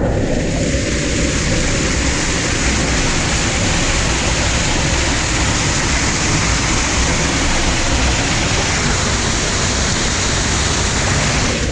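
Waterfall water rushing and splashing close to the camera, a loud steady hiss with a deep rumble underneath.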